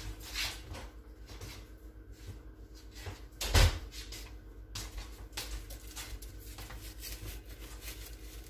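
A kitchen cupboard shutting with one loud knock about three and a half seconds in, with a few faint clicks before and after over a low steady hum.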